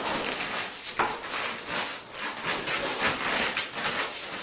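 Scuffing and rubbing of feet, clothing and a long training stick as two people move on a floor mat, with one sharper tap about a second in.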